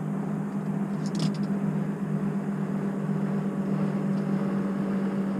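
A boat's motor running with a steady low hum under a rushing noise, with a brief high clink about a second in.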